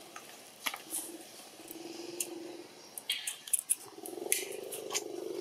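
Baby long-tailed macaque suckling at its mother's teat: scattered wet clicking and smacking, several in quick succession about three seconds in.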